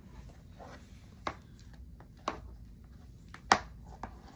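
Four sharp plastic clicks, about a second apart, from a hard clear plastic storage container being pried and snapped open by hand; the third click is the loudest.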